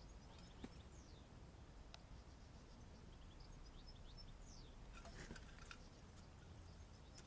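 Near silence: faint background hum with a few faint, short, high bird chirps, a couple of light clicks, and a brief faint rustle of handling about five seconds in.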